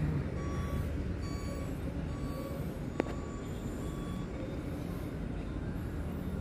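A heavy truck's diesel engine running steadily, with a reversing alarm beeping repeatedly through the first couple of seconds and a single sharp click about three seconds in.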